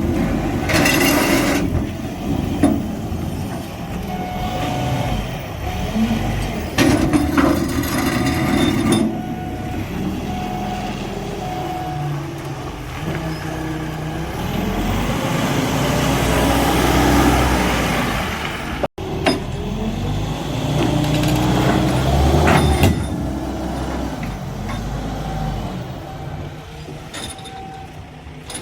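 Heavy vehicle's diesel engine running and revving under load, its pitch rising and falling, with short bursts of hiss.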